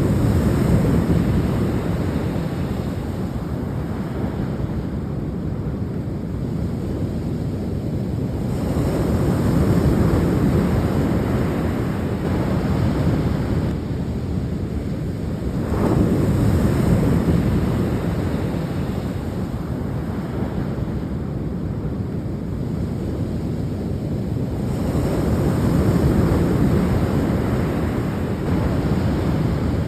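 Sea waves breaking and washing on the shore, the surf swelling up and ebbing back in surges about every 7 to 10 seconds.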